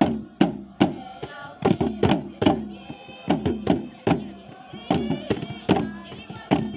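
Traditional dance music: a drum struck in a steady beat, about two and a half strokes a second, each stroke dropping slightly in pitch, under a group of voices singing.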